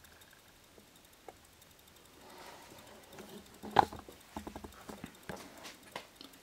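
Footsteps and small knocks on a debris-strewn floor: faint at first, then one sharp knock about four seconds in followed by a quick run of light taps and clicks.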